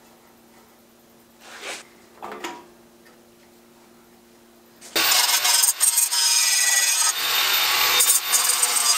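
Two brief faint scratches of a marker drawing on the metal cover, then about five seconds in an angle grinder with an abrasive disc starts grinding the edge of a sheet-steel belt guard, a loud steady rasping that carries on.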